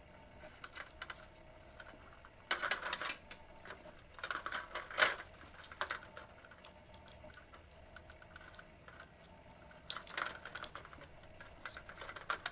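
Light clicking and rattling of wires and small parts being handled in a fluorescent light fixture during rewiring, in several short clusters with a sharper click about five seconds in.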